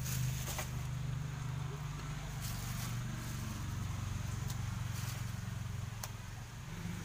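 Steady low drone of an idling engine, with a few short clicks over it.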